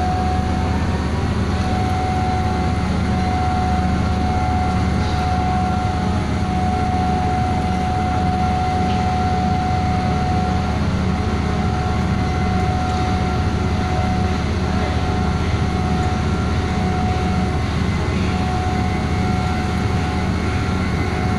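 A machine running steadily: a continuous low drone with a steady high whine over it.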